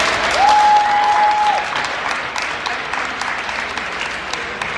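Spectators in a gym clapping and cheering, loudest at the start and then easing off, with one held tone about half a second in.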